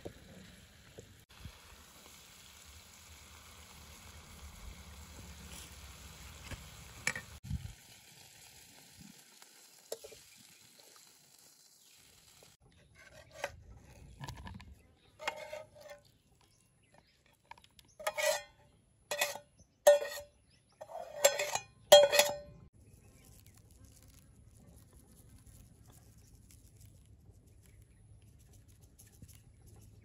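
Stir-fry sizzling faintly in a pan while a steel spatula stirs it. Then comes a run of sharp scraping strokes of the spatula against the pan with a slight metallic ring as the food is scraped out onto a plate, the loudest five in quick succession about two-thirds of the way through.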